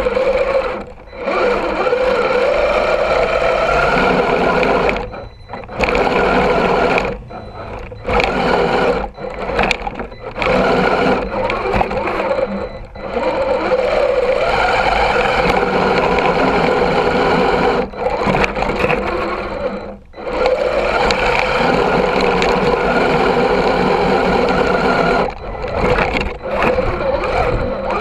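Axial SCX10 II RC rock crawler's electric motor and geared drivetrain whining as it crawls through snow, picked up close by a camera mounted on the truck. The whine rises and falls with the throttle and drops out briefly about ten times as the throttle is let off.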